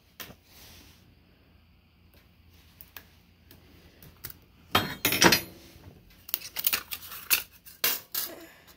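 Pliers clinking on steel baling wire and a thin sheet-aluminium mould sleeve as the wire is worked loose and the sleeve is stripped off a freshly cast lead hammer head. It starts with a few faint ticks, then there is a loud clatter of metal about five seconds in and a string of sharp clinks after it.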